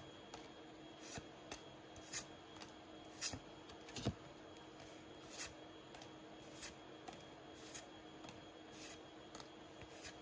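Pokémon trading cards being slid one at a time from the back of a stack to the front, each move giving a short, crisp swish or snap, about once a second.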